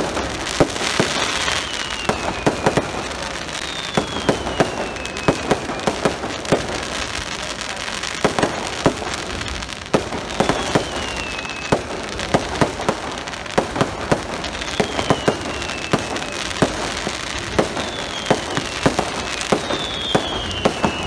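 Fireworks going off: a dense, steady crackle with many sharp bangs, at times two or three a second, and falling whistles every few seconds.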